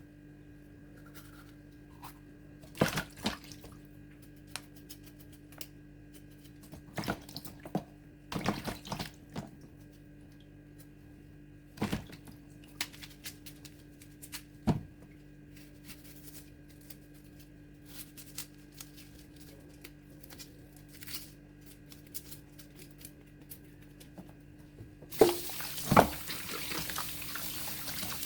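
Scattered short knocks and scrapes of potatoes being peeled and handled in the kitchen. About 25 seconds in, a kitchen tap is turned on and water runs steadily, as for washing the peeled potatoes.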